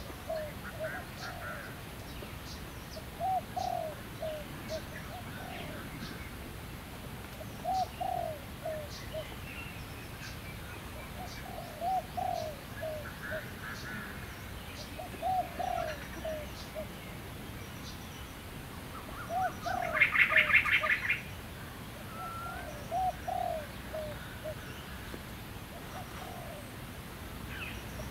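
A dove cooing, the same short phrase of a few low notes repeated about every four seconds, with faint high bird chirps behind it. About twenty seconds in, another bird gives a louder, rapid chattering call lasting about a second.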